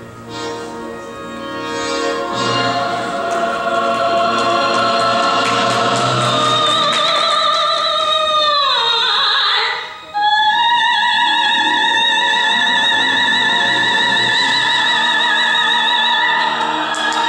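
Female soprano singing a Chinese song in a classical, opera-like style into a microphone over instrumental accompaniment. After a short instrumental opening the voice comes in, slides downward about eight seconds in, then holds one long high note with wide vibrato.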